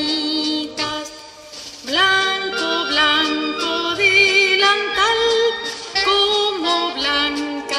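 Children's song music: a sung melody over backing, its notes sliding up at their starts, with a short break about a second in.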